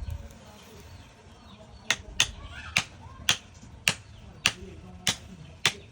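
A steady series of sharp, short striking knocks, eight in all at about two a second, starting about two seconds in.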